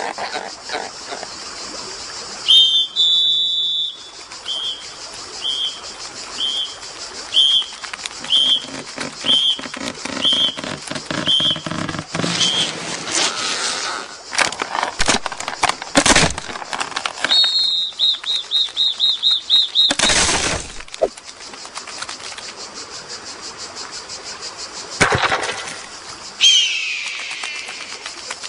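A series of short high whistle-like squeaks, about one a second, then a fast warbling squeak, a loud rushing burst, and a falling squeal near the end: cartoon-style sound effects for the ants.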